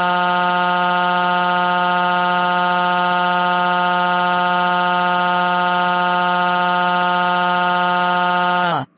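A loud, steady, buzzy electronic tone held at one pitch, which slides sharply down and cuts off just before the end.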